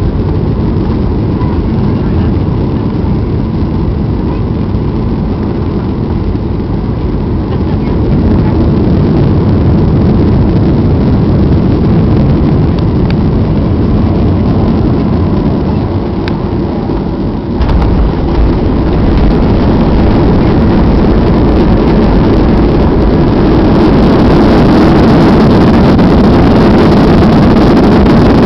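Cabin noise of a Boeing 737-800 landing: steady engine and airflow noise on short final. About two-thirds of the way through comes a sudden jolt as the main wheels touch down, then a heavier rumble of the wheels rolling on the runway. Near the end the noise swells louder and brighter as the engines go into reverse thrust on the rollout.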